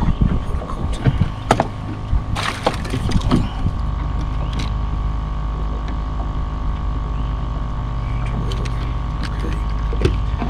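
A few knocks and clunks as the boat's livewell lid is lifted and a fish is handled. From about four seconds in, a small motor on the boat hums steadily with a constant high whine.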